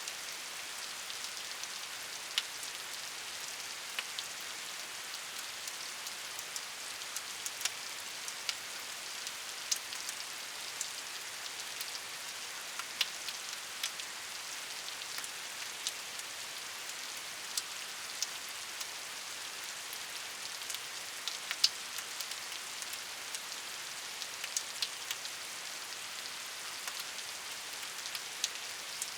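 Steady rain falling, an even hiss with frequent distinct drops pattering sharply on a surface close by.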